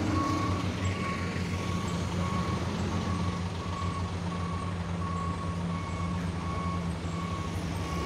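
Truck's reversing alarm beeping steadily, about one and a half beeps a second, over the truck's engine running as it backs up.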